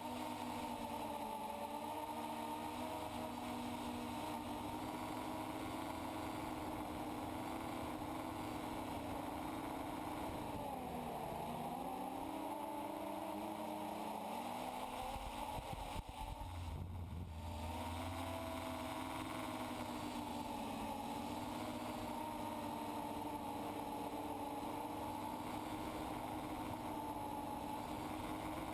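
FPV quadcopter's electric motors and propellers whining steadily, heard from on board. The pitch sags and recovers about ten seconds in with a throttle change, and a short low rumble cuts in around sixteen seconds.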